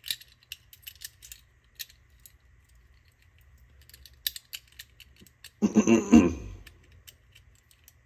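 Light metallic clicks and clinks of a toggle switch and its hex nut being handled against a thin sheet-metal switch plate. A short voiced sound from the person breaks in a little more than halfway through.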